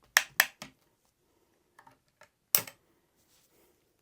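Metal cleaning rod with a jag and patch clicking and knocking against a Springfield trapdoor rifle's barrel as it is worked through the bore: three quick sharp clicks, then a louder knock about two and a half seconds in.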